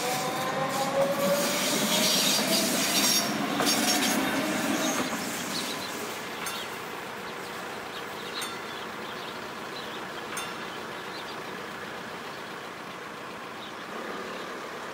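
Red S-Bahn electric multiple-unit train passing over the level crossing: its motors whine, rising in pitch, and its wheels clatter over the rails. The train sound fades out after about five seconds.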